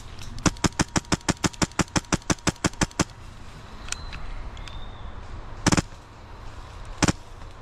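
Airsoft gun firing: a quick, even string of about seventeen shots at six or seven a second, lasting about two and a half seconds, then three single shots spaced apart near the end.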